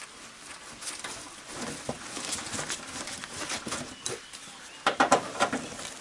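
Hand-work noise on a car's plastic front trim: rustling of a vinyl fender cover and scattered light plastic clicks, with a quick cluster of louder clicks and knocks about five seconds in as a tool is set to the panel's fastener.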